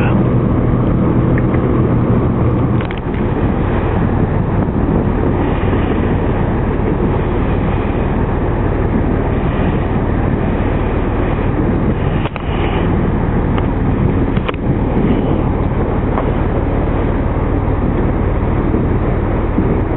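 Steady car engine and road noise heard from inside the car, with a low hum. Two brief knocks a couple of seconds apart partway through.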